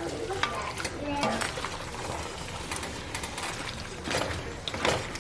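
A spoon stirring and scraping beef and vegetables in a Dutch oven over medium-high heat. Irregular clicks and scrapes of the spoon against the pot come over a steady sizzle.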